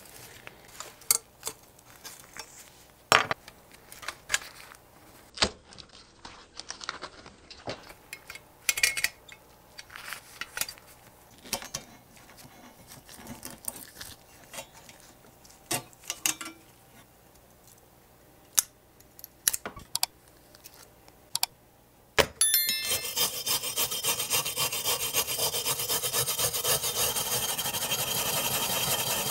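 Scattered light clicks and taps as a rusted metal model car body is handled and turned over, then, after about twenty seconds, a hand wire brush scrubbing rust and flaking paint off the body: a loud, continuous, rapid scratching.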